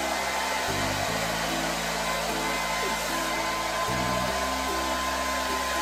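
Hair dryer blowing steadily, a constant airy hiss with a faint motor whine, over background music.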